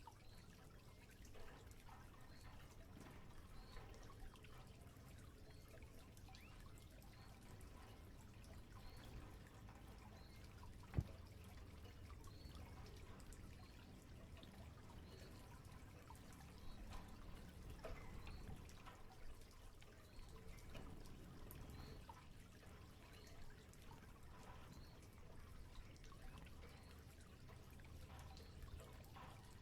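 Faint trickling and dripping water, with one sharp click about eleven seconds in.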